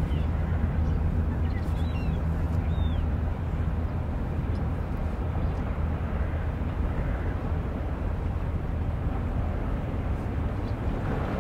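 Waterfront ambience: a steady low engine hum that eases after about three seconds, over a constant wash of city noise, with a few short bird chirps in the first few seconds.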